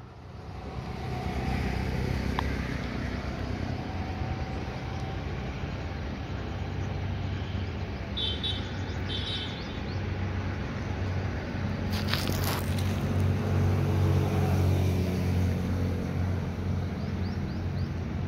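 A motor vehicle's engine running steadily nearby, a low hum that swells in the first second and grows louder in the second half. Two brief high chirps come about eight and nine seconds in.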